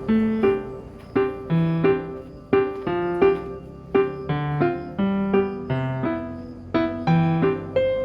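Background piano music: a gentle melody of struck notes over a steady bass line.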